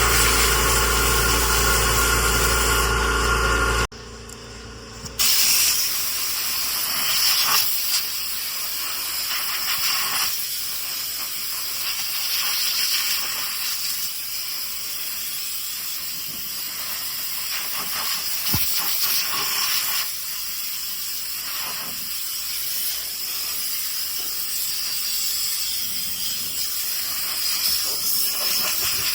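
Compressed air hissing steadily from an air-compressor blow wand as it blasts dirt and beans off a combine's cutter bar, surging now and then. For the first four seconds a steady machine hum is heard instead, and it cuts off suddenly.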